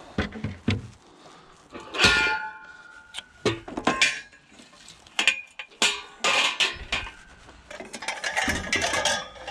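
Scrap metal clanking and ringing as it is handled and dropped: a series of metallic knocks and clatters, several of them ringing on, the loudest about two seconds in.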